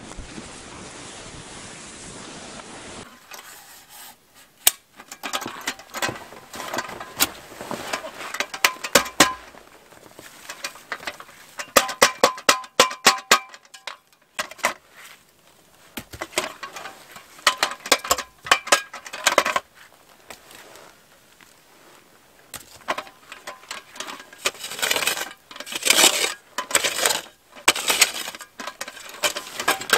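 Irregular clusters of sharp, slightly ringing clicks and clinks, after a few seconds of wind noise on the microphone.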